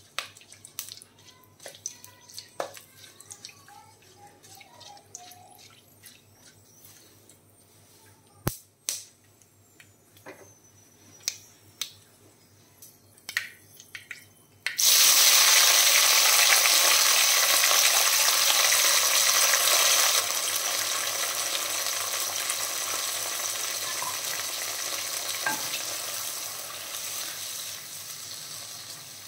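Scattered light clicks and knocks, then about halfway through a sudden loud sizzle as ingredients hit hot oil in a cooking pan; the sizzle slowly eases toward the end.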